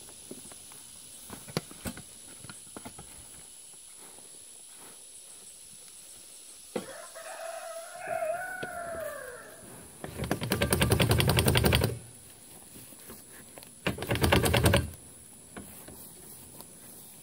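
A rooster crows once, a single call that rises and then falls. Then come two bursts of loud clattering rattle, the first about two seconds long and the second about one second, from an emptied steel wheelbarrow being wheeled over the grass.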